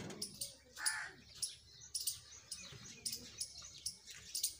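Small birds chirping over and over in short high calls, with a crow cawing once about a second in.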